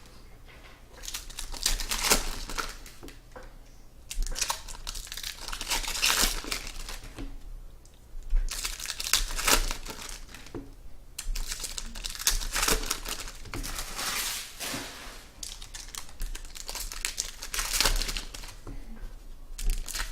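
Plastic wrapping on trading-card boxes and packs crinkling and tearing as they are ripped open, in repeated bouts with short pauses.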